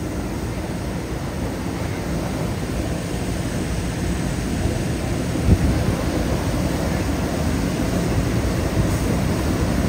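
Steady low rushing noise of water gushing from a sheared fire hydrant, with a single thump about halfway through.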